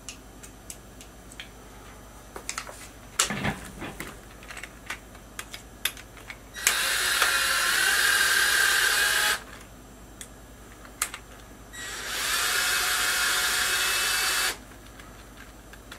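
Electric drill-driver running in two bursts of about three seconds each, about a second and a half apart, driving a steel bolt straight into an unthreaded 3D-printed PLA block so that it cuts its own thread. It is driven in short runs to let the bolt and the plastic cool. Light clicks of handling the parts come before the first run.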